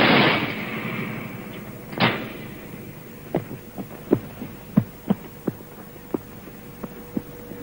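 A loud crash with a long decaying tail, a second hit about two seconds later, then a run of short, irregular thuds that thin out, all over a steady hum on an old film soundtrack.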